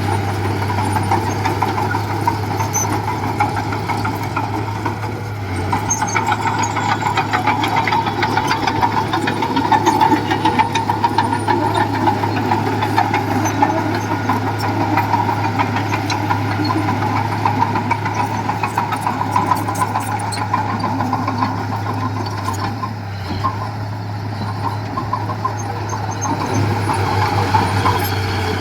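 Diesel engine of heavy earthmoving machinery running steadily with a low hum, easing off slightly a couple of times.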